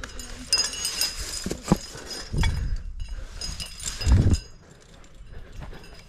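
Metal climbing gear (carabiners and quickdraws) clinking and jingling on a climber's harness as he moves up rock, with scattered clicks and brief ringing, and two louder low puffs about two and a half and four seconds in.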